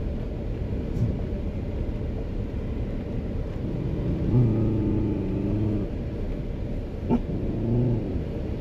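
Steady low rumble of a vehicle driving, heard from inside the cab, with two short pitched sounds about four and seven and a half seconds in.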